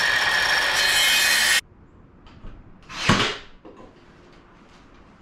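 Ryobi circular saw running through a wooden trim board with a steady whining cut, stopping abruptly about one and a half seconds in. A short loud sound follows about three seconds in.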